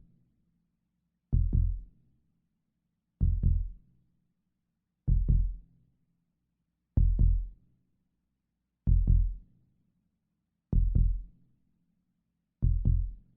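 Normal heartbeat, lub-dub: each beat is a pair of low thumps (the first and second heart sounds) close together, repeating evenly and slowly at about one beat every two seconds, seven beats in all.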